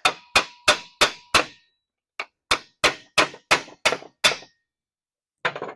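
Hammer blows on lug nuts threaded partway onto wheel studs, driving the studs out of a Toyota Tacoma rear axle flange, with the nuts protecting the stud threads. Sharp metal-on-metal strikes about three a second, five in a row, a short pause, then about seven more.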